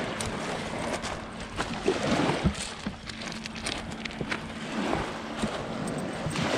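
Small waves washing in over a pebble beach, with a dog splashing through the shallows. Pebbles click and crunch throughout, and there is a louder burst of splashing about two seconds in.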